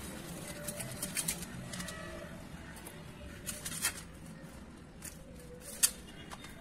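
Peeled garlic cloves clicking against a stainless steel plate as a hand pushes and spreads them out: a scattering of light taps, the sharpest near the end.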